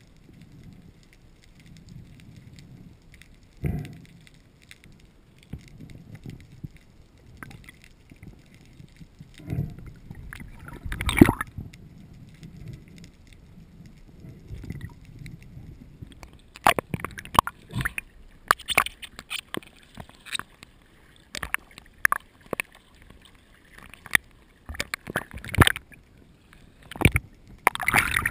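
Underwater sound picked up by a GoPro in its housing: a low water rumble with scattered sharp knocks, the loudest about eleven seconds in, then clicks and knocks coming thick and fast in the second half.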